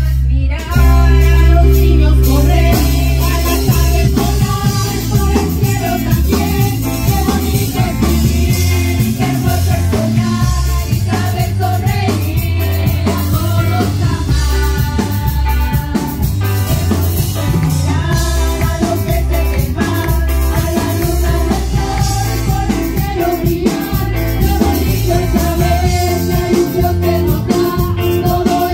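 Live worship music: women singing into microphones over a band with a strong, stepping bass line and drums.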